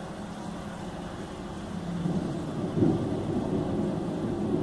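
Steady heavy rain falling on flooded ground, heard through an open window. A low rumble swells about two seconds in and stays loud.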